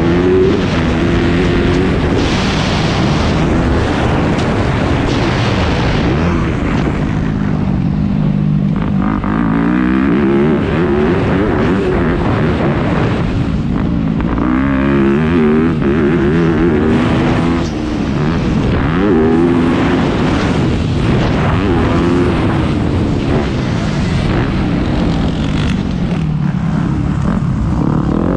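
Yamaha YZ250F motocross bike's single-cylinder four-stroke engine, heard onboard, revving hard and shifting: the pitch climbs and drops again and again as the rider accelerates, shifts and rolls off for turns.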